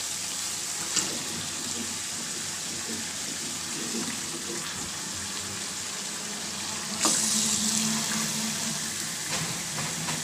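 Spiced masala sizzling in a hot karahi, with a sharp click about a second in. About seven seconds in the sizzling suddenly gets louder, then eases off over a couple of seconds, as raw chicken pieces go into the hot masala.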